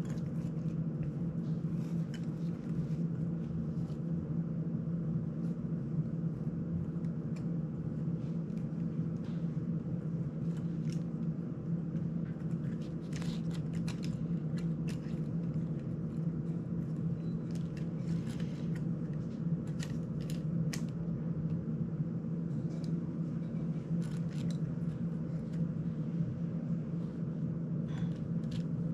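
A steady low hum, with scattered light clicks and taps from the small screws and plastic parts of a GEPRC CineLog35 drone's frame and prop guards being handled by hand during repair.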